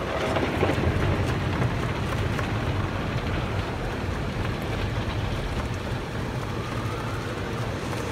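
Automatic car wash spraying and washing the car, heard from inside the cabin as a steady rush of water with a low rumble.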